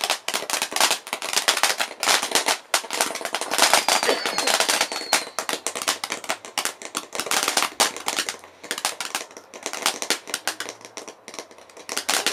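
Fireworks going off in quick succession: a dense run of sharp bangs and crackles, many a second, that thins briefly about eight and eleven seconds in.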